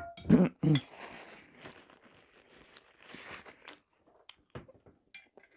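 Clip-on lavalier microphone being handled on a T-shirt: a few loud knocks in the first second, then a rustle of fabric rubbing against the mic, then scattered small clicks.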